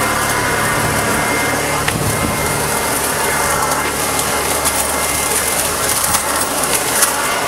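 Black & Decker 36-volt cordless blower-vacuum running in vacuum mode: a steady whine of motor and fan over a rush of air. Scattered sharp clicks come as leaves and bits of grit are sucked into the nozzle.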